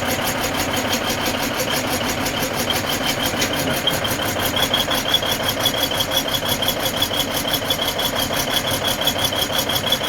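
Diesel engine of a heavy earthmoving machine running steadily with a fast, even pulsing. A high, thin whine rides over it and grows stronger about halfway through.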